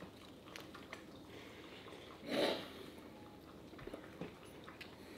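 Quiet chewing of mouthfuls of stuffed waffle, with faint scattered clicks and one short breathy sound about two and a half seconds in.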